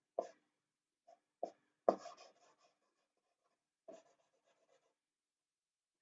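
Black marker pen drawing on paper: about four short, scratchy strokes, spread out, the third the longest.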